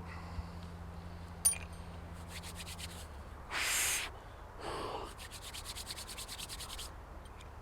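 A knife blade scraping in quick rasping strokes, about a dozen a second, with two longer, louder scrapes in the middle and a sharp click before them: fire preparation with a bushcraft knife.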